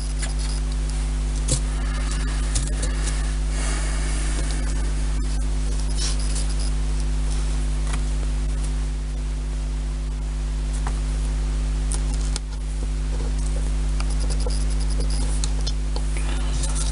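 A steady low hum, with scattered light clicks and rustles as pins are taken from a pin block and pushed through the plan.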